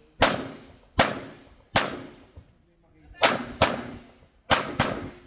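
Pistol shots from a red-dot-sighted production pistol on a practical-shooting stage. There are seven shots: three singles under a second apart, then two fast pairs. Each shot is a sharp crack that rings on between concrete walls.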